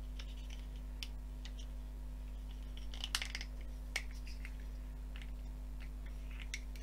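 Light clicks and taps of plastic model-kit engine parts handled and pressed together by hand, with a cluster of sharper clicks about three seconds in and another a second later. A steady low hum runs underneath.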